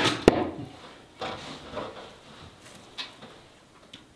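A hen making soft clucking sounds in a straw-lined nest box, with a few sharp clicks, the two loudest right at the start.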